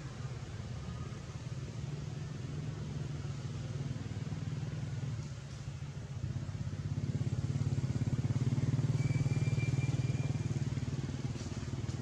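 A low, steady engine hum with a fine regular pulse, growing louder about halfway through and easing slightly near the end.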